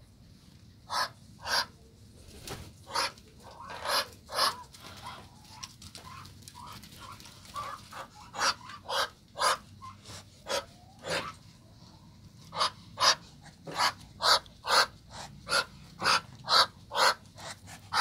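Muscovy drake hissing in short breathy huffs, about two a second in runs, with a quieter stretch in the middle.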